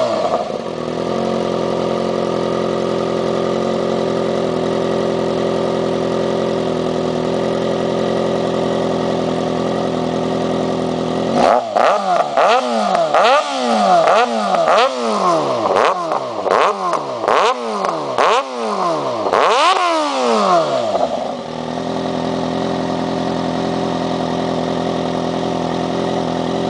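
Yamaha XJ6 motorcycle's inline-four engine idling steadily, then revved in about ten quick throttle blips, each rising and dropping back, before settling to idle again.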